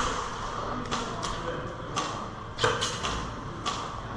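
Airsoft guns firing single shots during a close-quarters game: about six sharp cracks, irregularly spaced, the loudest about two and a half seconds in.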